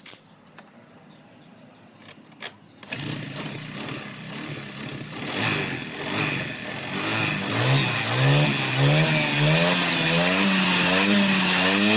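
Honda Click 110 scooter's single-cylinder four-stroke engine starting about three seconds in and running. It is then revved up and down in repeated throttle blips, each rise and fall about a second long and reaching higher toward the end.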